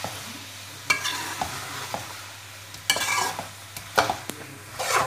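Metal spoon scraping and knocking against a steel kadhai as potatoes and mungre (radish seed pods) are stirred while frying in oil, with a steady sizzle underneath. The scrapes come every second or so, with a steady low hum behind them.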